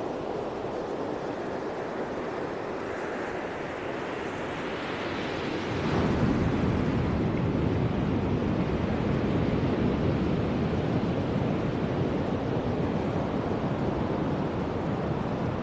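Surf washing on a beach, with wind buffeting the microphone; the rushing grows louder and deeper about six seconds in.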